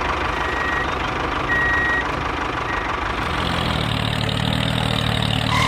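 Vehicle engine running steadily with a dense, noisy rumble; a deeper hum comes in about three seconds in, and a few faint short high beeps sound in the first half.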